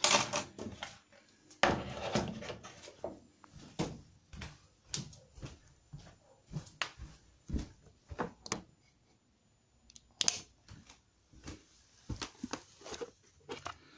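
Irregular light knocks, clicks and rustles of a handheld camera being carried and handled through a house, with louder knocks about two seconds in and about ten seconds in.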